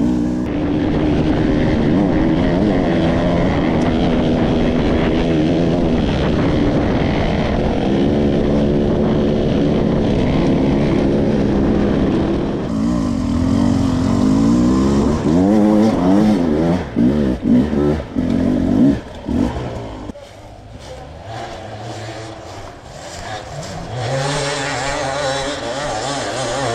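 Enduro dirt bike engine revving hard and unevenly under load, its pitch rising and falling. In the second half the throttle comes on and off in short bursts with sharp drops, then it runs quieter before pulling again near the end.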